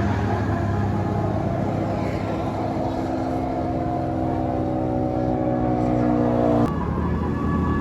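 Bus running with its multi-trumpet 'telolet' musical air horn sounding a held chord of several steady tones that cuts off suddenly about two-thirds of the way through, over the engine's steady low rumble.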